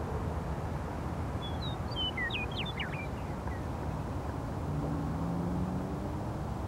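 A western meadowlark sings one short phrase of quick whistled, slurred and falling notes about a second and a half in. Under it runs a steady low rumble of construction machinery, whose engine hum rises slightly about five seconds in.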